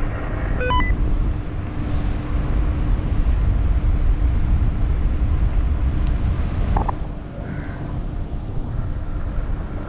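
Wind buffeting the microphone with a heavy low rumble, and a faint steady hum that stops about seven seconds in. A short beep sounds just under a second in.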